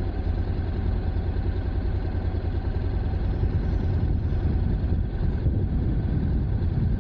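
Honda NC750X DCT's 745 cc parallel-twin engine idling steadily while the motorcycle stands still.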